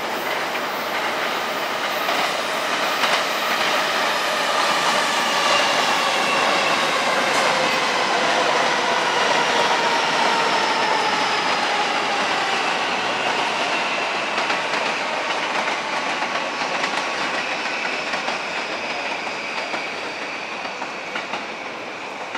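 JR East E235-1000 and E233-1000 series electric trains running side by side: wheels clattering over the rail joints under a motor whine that falls slowly in pitch, loudest midway and fading toward the end.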